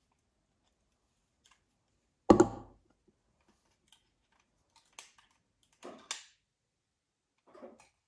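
A plastic garage door opener wall button and a screwdriver being handled while its wires are undone. There is one loud thump about two seconds in, then a few light clicks and scrapes.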